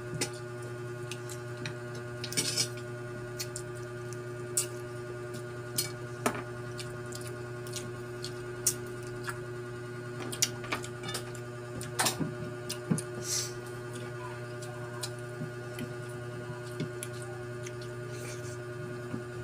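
Scattered clicks and cracks of mussel and shrimp shells being picked apart and eaten by hand, irregular and a few seconds apart, over a steady low hum.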